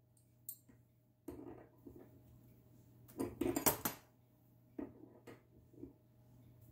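Metallic clinks and rattles of a braided stainless-steel water supply hose being handled and threaded onto a dishwasher's water inlet fitting. A louder burst of rattling comes about three seconds in, followed by a few light clicks.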